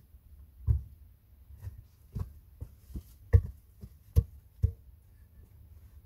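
A series of irregular dull wooden thuds and knocks, about a dozen: a log bumping against the log walls and footsteps on the earth steps of a dugout. The loudest knock comes a little over three seconds in.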